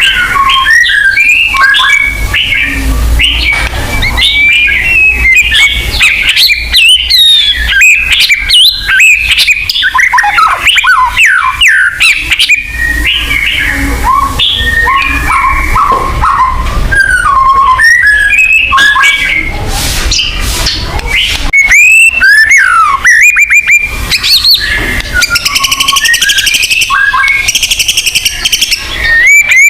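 White-rumped shama (murai batu) singing a loud, continuous, varied song of quick rising and falling whistled phrases and chattering notes, with a buzzier, higher-pitched stretch near the end.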